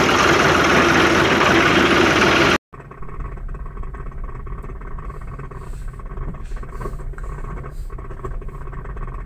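Farm tractor's diesel engine running loud and close for about two and a half seconds, then a sudden cut to the quieter, steady low rumble heard inside a car being towed behind the tractor.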